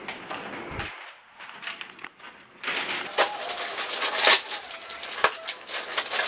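Brown paper parcel wrapping rustling, crinkling and tearing as it is opened by hand. It is quieter for a moment about a second in, then turns to a quick, irregular run of crackles.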